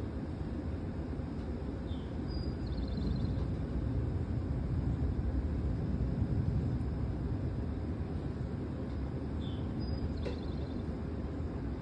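Steady low outdoor rumble, swelling a little around the middle, with a short bird call twice, about seven seconds apart.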